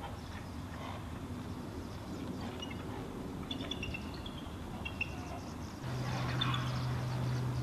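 Outdoor ambience with a few faint, short, high bird chirps in the middle. About six seconds in, a steady low hum begins and the overall level rises.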